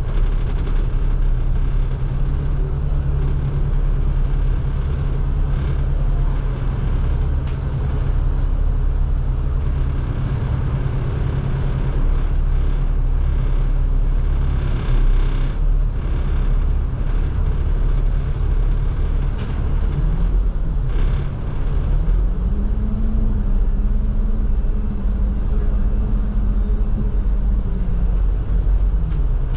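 Bus engine and road noise heard from inside the moving bus, a steady low drone. About two-thirds of the way through, the engine note climbs and holds higher, then drops back near the end.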